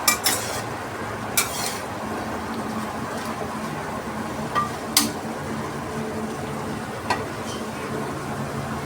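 Food sizzling in a frying pan as it is stirred, with the cooking utensil knocking sharply against the pan about four times.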